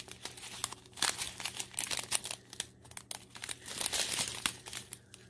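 Bags of diamond-painting drills crinkling as they are handled and sorted through, in a quick irregular series of rustles and crackles over a faint steady hum.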